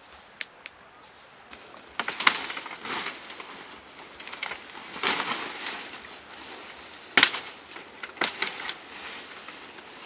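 Footsteps through jungle undergrowth: dry twigs and leaves snapping and crackling underfoot and against the body, with sharp snaps about two, five and seven seconds in over leaf rustling.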